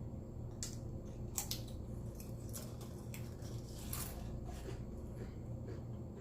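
Potato chips crunching as they are chewed close to the microphone: a string of sharp, crisp crackles at irregular intervals, over a steady low hum.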